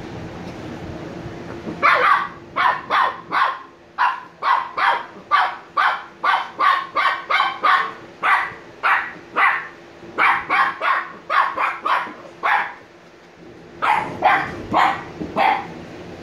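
Shiba Inu puppy barking in a quick run of short barks, about two to three a second, breaking off briefly and then giving a few more.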